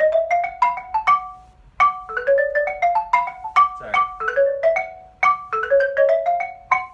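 Xylophone played with two mallets: quick runs of single struck, ringing notes, mostly climbing in pitch, in about three phrases with short breaks between, a practice break in D major.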